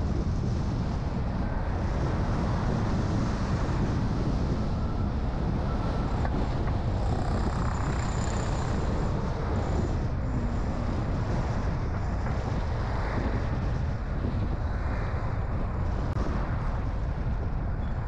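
A car being driven at steady speed: constant low rumble of engine and tyres on the road, with some wind noise.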